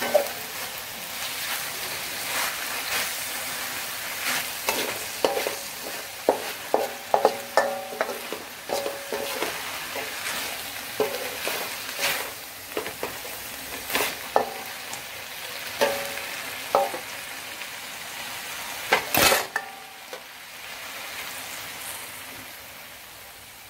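Chicken livers and water spinach sizzling in a metal wok as a metal spatula stirs them, scraping and knocking against the pan with short metallic rings. One stroke is much louder a little past three-quarters through, and the sizzle dies down near the end.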